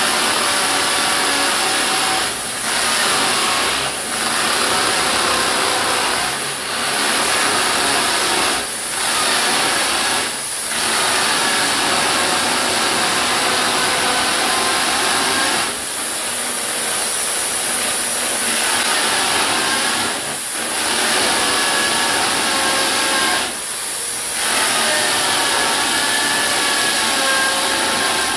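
Total TG105136 550 W electric impact drill hammer-drilling into a masonry wall with a 16 mm masonry bit, running loud and steady. Short dips in the sound every few seconds come as the drill is rocked and the pressure eased off rather than pushed in continuously.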